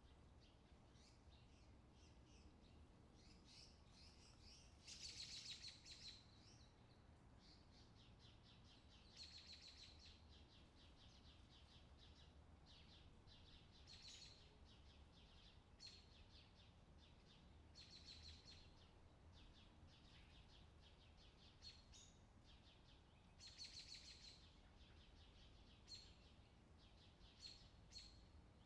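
Faint high-pitched chirping that comes back every couple of seconds over an otherwise quiet background.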